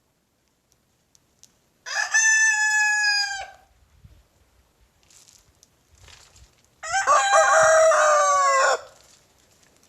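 Rooster crowing twice, each crow lasting about two seconds: one about two seconds in and a second, rougher-sounding one about seven seconds in.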